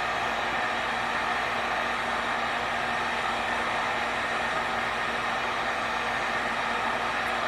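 Electric heat gun running steadily, a constant rush of hot air with a faint hum from its motor, heating vinyl graphics so they soften and conform to the plastic.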